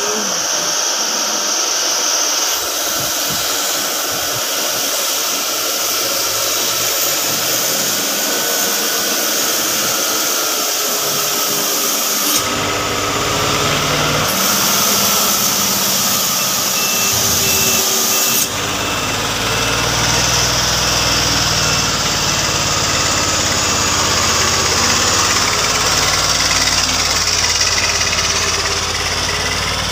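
Logging truck engines running hard on a steep dirt track, their pitch drifting up and down with the revs. The sound changes abruptly about 12 and 18 seconds in, and a deeper rumble is heard after that.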